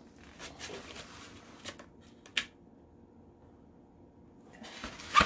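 Light rustling and handling noises with a few sharp clicks: one about two and a half seconds in, and the loudest just before the end, after a quiet stretch.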